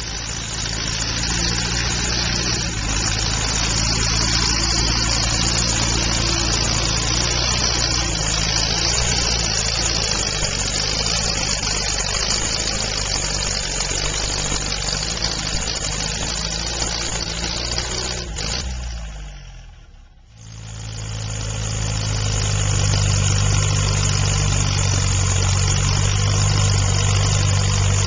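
Antique farm tractor engines running steadily during a tractor pull. About two-thirds of the way through, the sound fades briefly, then a nearer tractor engine runs on with a steadier, deeper hum.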